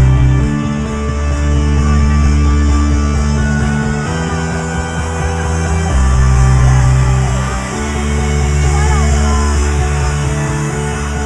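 Loud trance music over a club sound system, in a breakdown: long held bass and synth chords that change every couple of seconds, with no drum beat.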